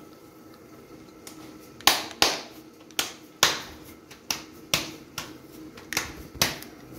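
Hands patting and slapping a ball of maize-flour (makki ki roti) dough flat between the palms: about a dozen sharp slaps at roughly two a second, beginning about two seconds in.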